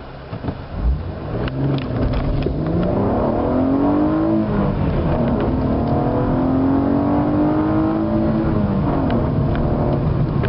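2008 Holden VE Commodore SV6's 3.6-litre Alloytec V6, with SS mufflers and an AFE cold air intake, accelerating flat out from a standstill in a 0–100 km/h run. The engine note climbs through first gear, drops at the shift about four and a half seconds in, climbs again through second, and drops at the shift to third near the end.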